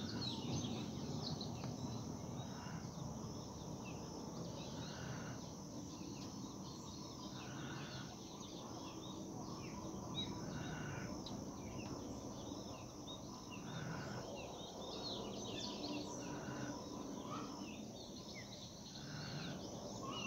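A sleeping dog snoring like a person, one breathy snore about every two to three seconds, with birds chirping in the background.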